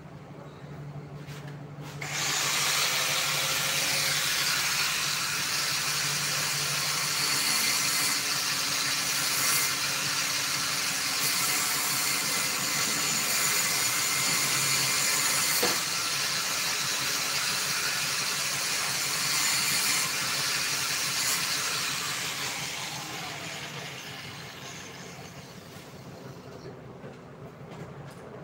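Electric angle grinder starting up about two seconds in with a rising whine, then running with a steady hiss as it grinds metal. It is switched off near the end and winds down with a falling pitch.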